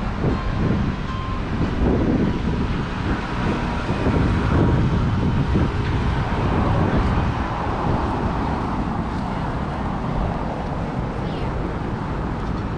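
Street traffic going by, a steady rumble of cars and engines, with wind buffeting the microphone.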